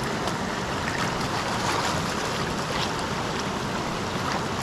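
Steady rush of river water running over rocky rapids, with a few faint clicks over it.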